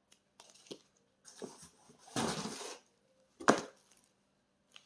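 Album packages being handled and sorted: small clicks and rustles, a brief sliding scrape about two seconds in, and a sharp knock a second later.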